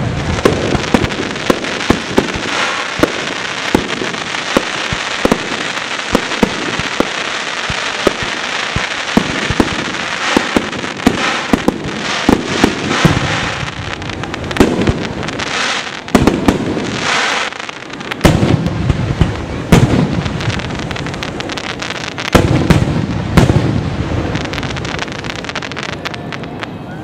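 Fireworks display going off nonstop: a dense crackle of bursting stars under many sharp bangs, with louder booms every few seconds.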